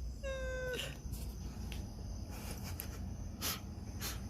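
A domestic cat meows once, a short flat call near the start, followed by a few scattered soft clicks and rustles over a low steady hum.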